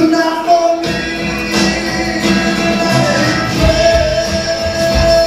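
Live pop song with a male voice holding long sung notes over the backing music; the bass comes in strongly about three and a half seconds in.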